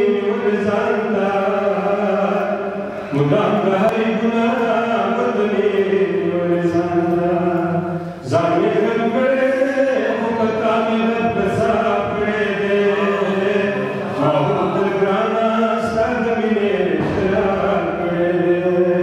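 A man chanting poetry in a melodic, long-held voice, in phrases of several seconds each with short breaks between them.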